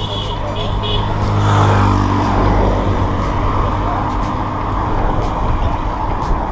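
Road traffic passing the microphone on a highway: an oncoming large vehicle's engine swells and passes close about a second and a half in. Cars follow, over a steady rush of wind and road noise.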